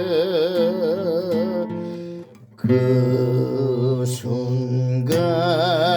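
A singer performing a Korean folk song, holding a long note with wide vibrato over instrumental accompaniment. The music drops out briefly about two and a half seconds in, then singing and accompaniment resume.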